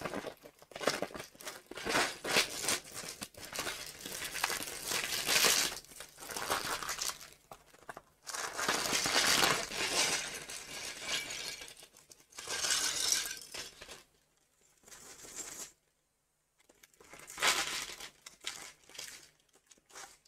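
Clear plastic LEGO parts bag crinkling and being torn open by hand, in irregular bursts with a pause of a few seconds about two-thirds of the way through.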